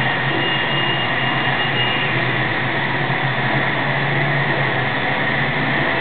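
A steady, loud rushing drone with a few faint high tones held over it and no beat or speech.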